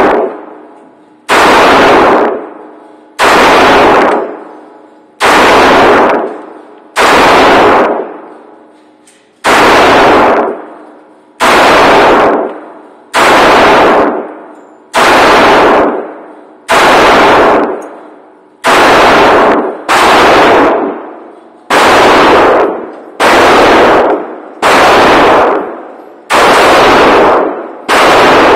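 Semi-automatic pistol fired in steady single shots, about one every two seconds, some sixteen in all. Each shot overloads the recording and rings out for about a second in the enclosed indoor range.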